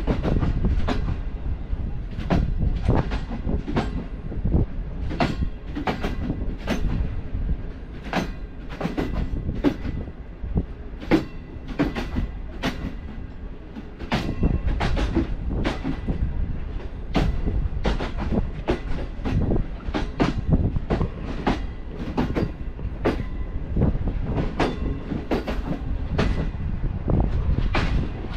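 Green Line Express passenger coach running on the rails: a steady rumble with the wheels clicking over rail joints, about two clicks a second, unevenly spaced.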